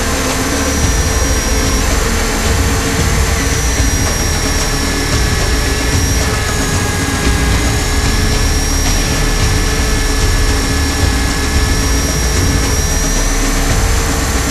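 Align T-REX 500 electric RC helicopter in flight, heard from a camera inside its scale fuselage: a steady high whine from the motor and drivetrain, wavering slightly in pitch, over a heavy low rumble.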